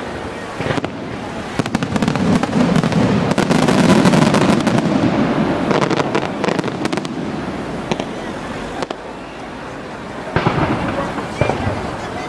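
Fireworks display: a dense barrage of rapid crackling bangs with a heavy rumble, loudest a few seconds in, then a few separate sharp bursts near the end.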